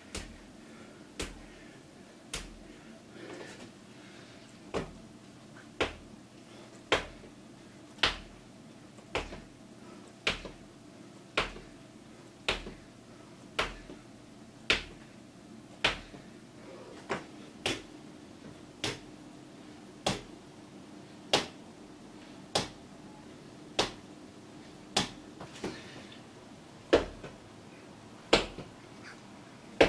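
Sharp slaps of a hand striking a man's own body, about one a second, as self-inflicted toughening for taking hits.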